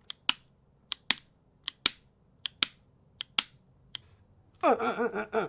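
A mechanical keyboard key tapped slowly and evenly, each stroke a sharp double click of press and return, coming a little faster than once a second. About four and a half seconds in, a person's voice starts, sliding down in pitch.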